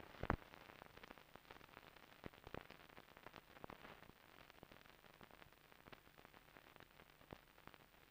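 Faint hiss with scattered irregular clicks and crackles, and a louder pop right at the start: the surface noise of an old 16mm film soundtrack.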